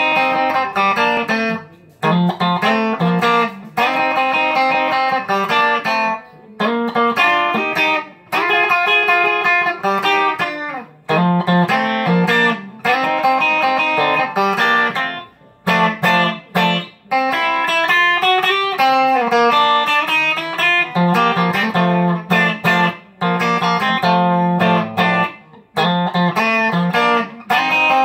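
Electric guitar playing a blues tune in chords and short riffs, phrases of a few seconds each broken by brief gaps.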